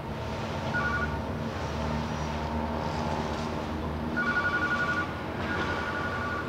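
A ringing made of two steady high tones, heard briefly about a second in, then again about four seconds in with a fast pulse, and once more near the end, over a steady low rumble.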